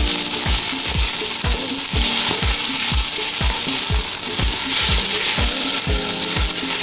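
Diced potatoes and vegetables sizzling in oil in a stainless steel pot as they are stirred with a wooden spoon. Under it runs background music with a steady beat of about two thumps a second.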